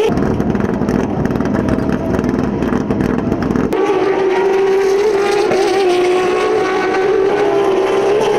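Turismo Carretera race cars' engines at full throttle. For the first few seconds a car passes close with a deep, rough exhaust note. After a sudden cut comes a steady, high-revving engine note that holds one pitch with slight wavers.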